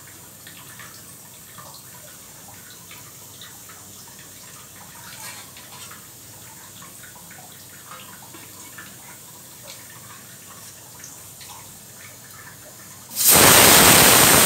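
Faint clinks and scrapes of a steel tumbler against a steel bowl as egg white is poured off the yolk. About 13 seconds in, a loud steady rushing noise starts suddenly and runs on to the end.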